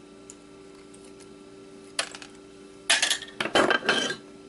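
Small metal hard-drive parts clinking and clattering during hand disassembly. One sharp click comes about two seconds in, then a burst of rattling metal clatter for about a second.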